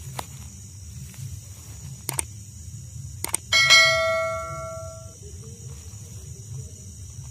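Subscribe-button animation sound effect: a few sharp click sounds, then a bell-like ding about three and a half seconds in that rings and fades over about a second and a half.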